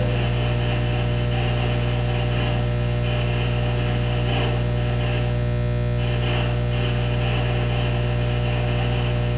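Steady mains electrical hum with a buzz, unchanging throughout.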